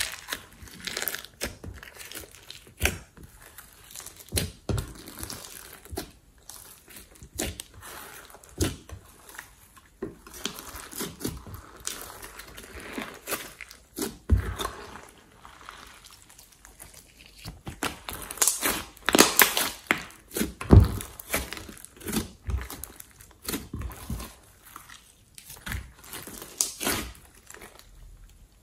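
Hands kneading, folding and stretching glossy slime in a glass dish, giving irregular pops and crackles, with a run of louder pops about two-thirds of the way through.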